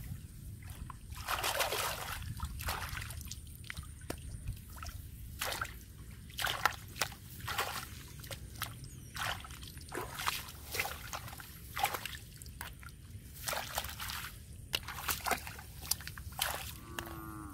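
Hands splashing and sloshing in shallow muddy rice-paddy water while feeling for fish: irregular short splashes and dribbles, a few every second, over a steady low rumble.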